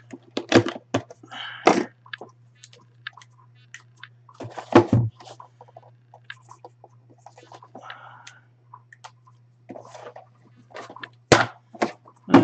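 Small cardboard boxes being handled on a tabletop, with scattered clicks, taps and rustles and a marker writing on a box. Two louder thumps come about five seconds in and near the end as a box is set down.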